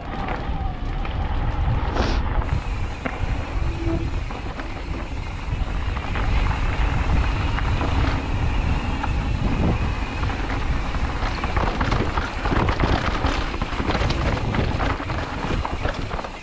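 Mountain bike ridden along a dirt forest singletrack: wind buffeting the mounted camera microphone over tyre noise on the trail, with frequent rattles and knocks from the bike as it goes over bumps and roots.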